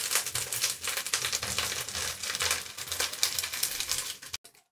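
Chicken pieces shallow-frying in hot oil in a pot: a steady sizzle with dense, rapid crackling and popping, which stops abruptly about four seconds in.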